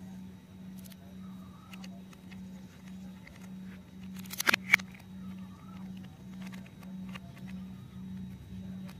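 Hard plastic toy parts clicking and knocking as a plastic screw is fitted into a take-apart toy helicopter. There are scattered light clicks and a quick cluster of sharp clicks about halfway through. A steady low hum runs underneath.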